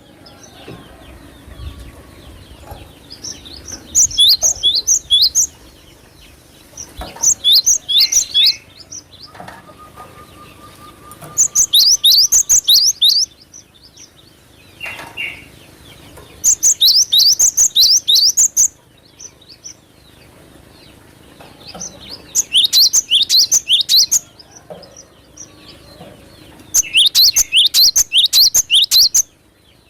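Cinereous tit (glatik batu) singing: six loud bursts of rapid, sharp, high falling notes, each about one and a half to two seconds long, repeated every four to five seconds.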